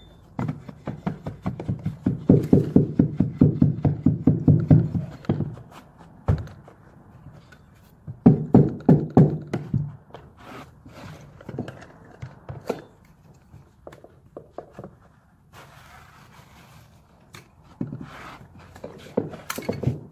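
Quick runs of dull thumps as the black stair nosing on the bottom step is pounded down onto the wooden tread, in three bursts with scattered single knocks between them.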